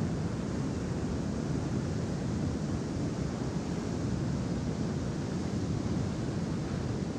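Steady rush of river water pouring over a low dam's spillway: an even, unbroken noise that holds the same level throughout.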